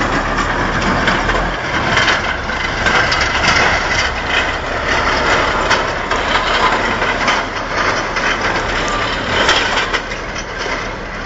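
Heavy steel pipe and pipe-laying machinery sliding and tumbling down a dirt slope: a loud, noisy rumble full of crackling knocks and crashes, easing a little near the end.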